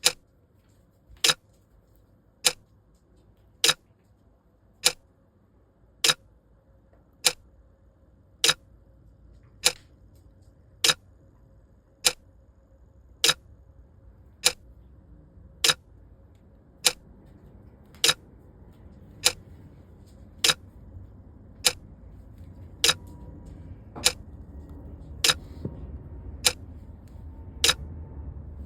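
Dubbed-in clock-ticking sound effect: single sharp ticks, evenly spaced and a little slower than one per second. A faint low rumble underneath grows louder toward the end.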